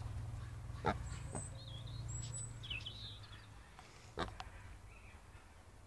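Faint high chirps and short warbles of small birds, over a low rumble and a few sharp clicks. The rumble fades out about halfway through.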